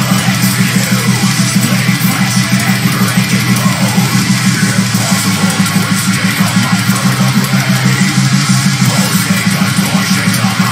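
Heavy metal song playing: distorted electric guitars and drums in a fast, steady rhythm.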